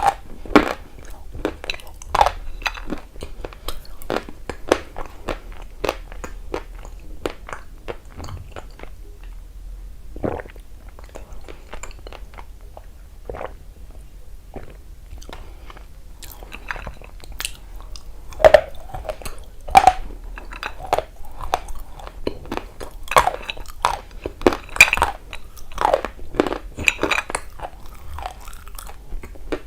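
A person biting and chewing dry, crunchy eating clay close to the microphone. It is a run of irregular sharp crunches, sparser in the middle and louder and more frequent in the last dozen seconds.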